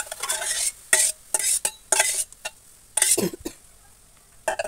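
Irregular clinks and scrapes of a utensil against a bowl and the wok as ground chili spice paste is added to hot oil and stirred, with a faint sizzle underneath.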